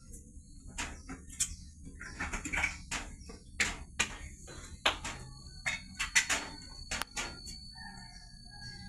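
Irregular light clicks and taps, a dozen or more, sharp and closely spaced at times, with a faint steady high tone joining about halfway through.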